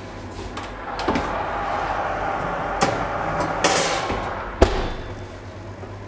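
Electric oven door opened and a perforated metal baking pan of chestnuts slid in with a few clicks and clinks, then the oven door shut with a sharp knock a little over four and a half seconds in. A steady rushing noise runs while the door is open.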